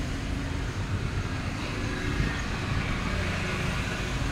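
Steady low rumbling background noise with a faint hum, without any distinct event.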